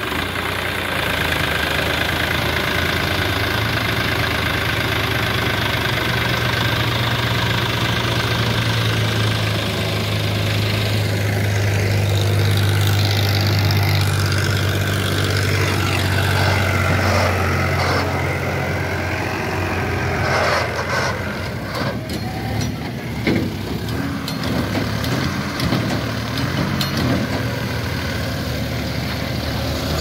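Diesel farm tractor engines running: a steady low drone for the first ten seconds or so, then a less even engine sound with occasional short knocks.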